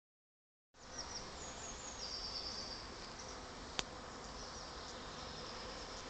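A swarm of honeybees clustered on a branch, humming steadily; the sound begins just under a second in. A few high chirps sound about two seconds in, and a single sharp click comes just before four seconds.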